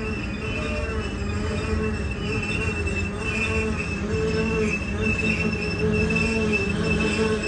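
Freight train cars rolling slowly under braking, the brake shoes squealing in several steady, slightly wavering high-pitched tones over a low rumble. The squeal comes from the train being braked down to a crawl.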